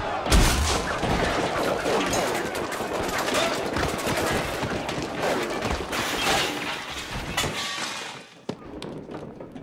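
A thrown grenade goes off with a loud bang about half a second in. A dense run of gunfire follows amid a noisy din, dying down after about seven and a half seconds to a few scattered clicks.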